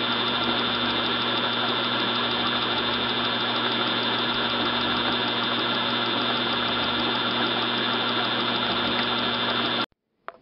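Treadmill motor spinning the flywheel of a Tecumseh HH120 engine simulator: a steady mechanical whir with several constant tones, cutting off suddenly near the end.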